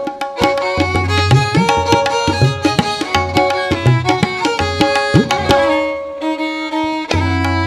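Tabla playing a brisk rhythm, its low bass-drum strokes bending in pitch, under a sustained instrumental naat melody. The drumming drops out for about a second shortly before the end while the melody holds, then resumes.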